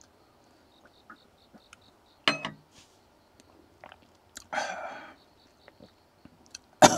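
Faint small mouth clicks from a man with a chest cold. A short throaty sound comes about two seconds in and a breathy rush around four and a half seconds, then a sharp cough starts near the end.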